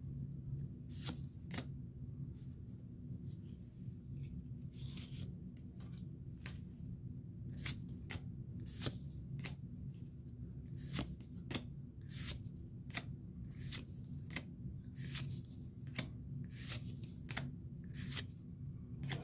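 Pokémon trading cards being slid and flicked one at a time through the hands, a string of short, sharp swishes about once a second, over a steady low hum.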